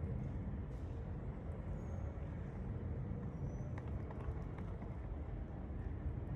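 Outdoor garden ambience: a steady low rumble of breeze and distant background noise, with two faint short high chirps.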